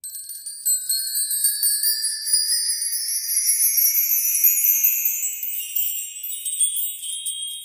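Title-animation sound effect: a high, shimmering tinkle of chime-like bells that climbs slowly in pitch and fades near the end.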